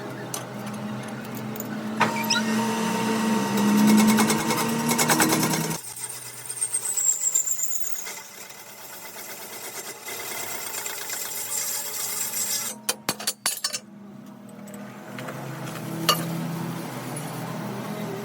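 A power tool running with a fast, even chatter that stops abruptly about six seconds in, followed by quieter tool noise and a few sharp clicks.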